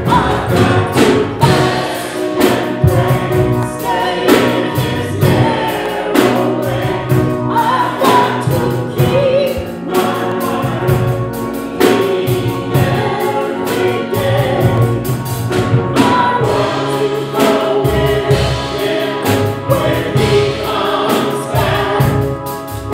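Choir singing a gospel song with instrumental accompaniment and a steady beat.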